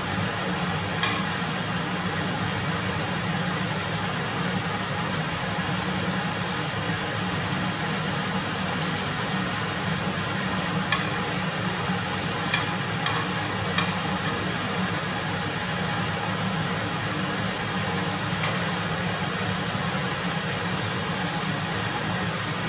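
Scallops sizzling in hot fat in a nonstick frying pan, a steady hiss, with a few sharp clicks of chopsticks against the pan as the scallops are turned, one about a second in and several around the middle. A steady low hum runs underneath.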